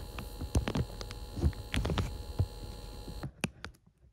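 Steady electrical hum with irregular sharp clicks and taps from handling; the hum cuts off suddenly about three seconds in, leaving only a few faint clicks.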